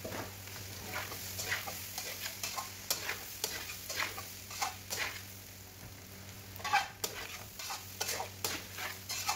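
A spatula scraping and stirring chicken and vegetables in a metal karahi, in irregular strokes a few times a second, over a faint sizzle of frying.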